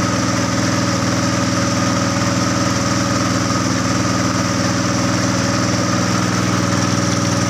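Boat's outboard motor running at a steady speed close by, an even, unchanging drone.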